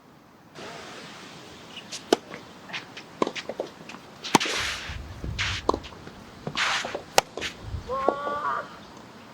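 Tennis ball struck back and forth in a rally: sharp hits about two to three seconds apart, with smaller clicks between them. Strong wind buffets the microphone in gusts, and there are a few short squeaks near the end.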